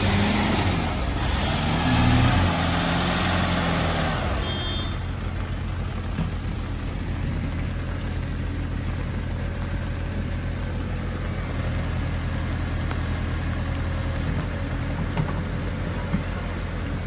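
Backhoe loader's diesel engine revving up and down over a loud rushing noise for about the first four seconds, then settling into a steady low idle.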